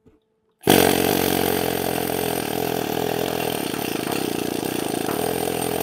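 Needle scaler hammering rapidly on a fresh nickel weld bead on cast iron, peening the weld so that the metal expands as it shrinks and does not put stress on the cast iron. It starts abruptly about a second in, runs steadily, and cuts off near the end.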